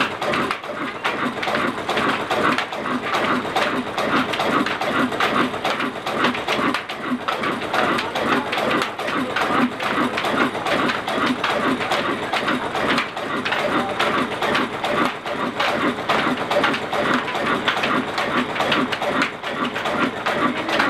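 Old Ruston Hornsby-type single-cylinder diesel engine running steadily with a regular rhythmic beat, driving a chakki flour mill.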